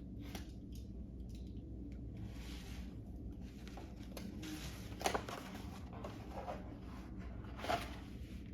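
Packaging rustling and crinkling as it is handled and opened by hand, with two sharp taps, one about five seconds in and one near the end.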